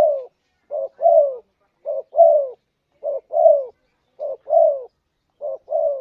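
Spotted dove (tekukur) cooing: a two-note phrase repeated about once a second, a short coo followed by a longer coo that falls in pitch.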